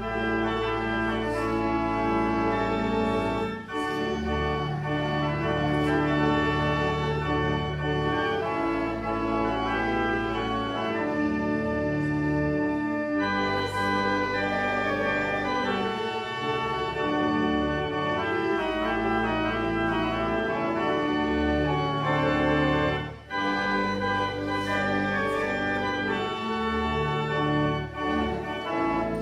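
Church organ playing slow sustained chords over a deep pedal bass, with brief breaks between phrases.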